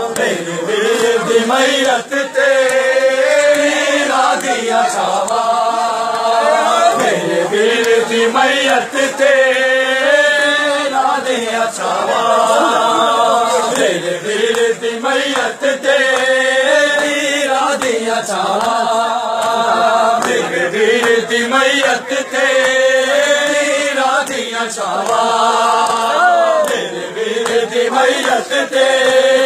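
A group of men chanting a Punjabi noha, a Shia lament, together. The sung phrases follow one another every two to three seconds in a repeating pattern.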